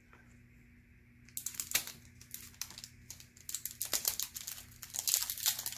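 Trading-card pack wrapper crinkling as it is handled, a rapid run of sharp crackles starting about a second in.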